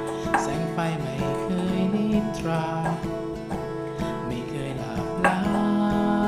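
Background music with plucked strings, such as guitar.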